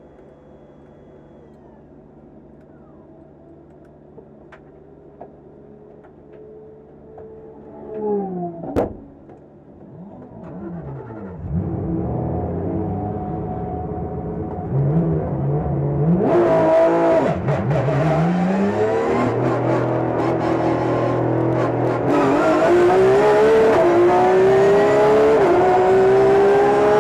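Porsche 911 GT3 R race car's flat-six engine heard from the cockpit: low and faint at first, with a sharp thump about nine seconds in. Then it revs up and down repeatedly as the car pulls away. Near the end it accelerates hard with a steadily rising pitch and an upshift.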